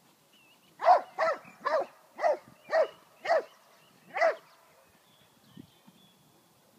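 A dog barking seven times in a quick, even series, about two barks a second, then falling silent. It is barking at the helper during bite-work training.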